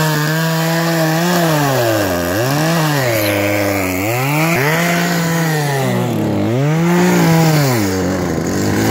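Chainsaw cutting into thick lake ice, its motor speed sagging several times as the chain bogs down in the cut and then picking back up.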